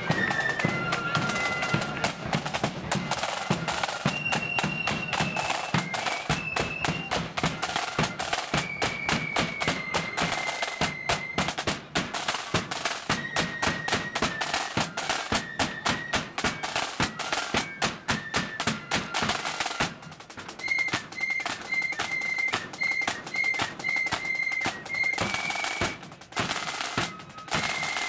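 Marching flute band playing: snare drums rattling rapidly under a high flute melody. About two-thirds of the way through, the drumming thins out and the flutes play short repeated notes.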